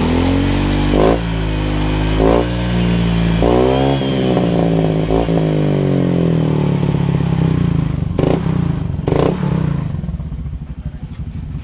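Honda Vario scooter's single-cylinder four-stroke engine revved in repeated blips through an F2Racing SS-type aftermarket exhaust, its note rising and falling with each blip. Several sharp pops come on the throttle releases, a few early on and two more near the end, put down to the bike running a little rough.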